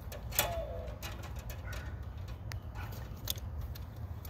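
A few light clicks and taps as the wires of a stripped UF cable and needle-nose pliers are handled, over a low steady rumble. A short wavering chirp comes about half a second in.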